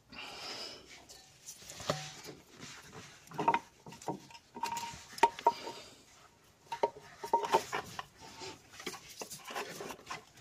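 Irregular clicks, knocks and scrapes of a hand tool and gloved hands working against metal and plastic parts in a car's engine bay, with a few sharp metallic clinks that ring briefly.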